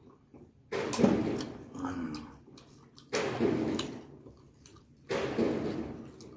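Three loud, breathy mouth sounds from a man eating with his hands, about two seconds apart, each starting sharply and fading over a second or so.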